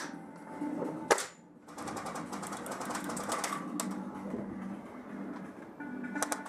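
Airsoft guns firing on full auto: a fast clatter of rapid shots lasting about two seconds, starting after a sharp knock a second in, with another burst starting near the end.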